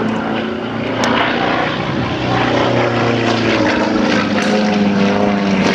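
Single-engine propeller aerobatic plane flying overhead trailing smoke, its engine a steady drone that shifts slightly in pitch.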